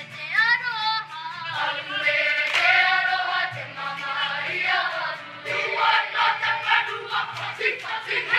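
Background music: a choir singing, several voices together, over a steady low accompaniment.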